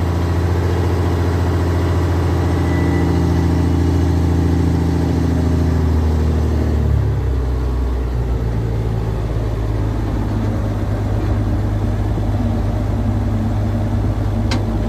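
Gemeinder diesel locomotive's 7.4-litre, 240 hp engine running steadily. About halfway through it drops to a lower engine speed and holds there. A single sharp click comes near the end.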